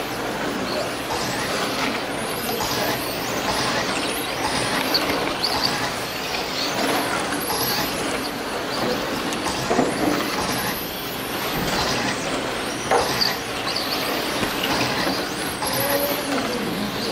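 Several 1/10-scale electric RC touring cars racing on a carpet track: a steady wash of motor and drivetrain noise with high whines that rise and fall as the cars accelerate and brake, and a couple of sharp knocks.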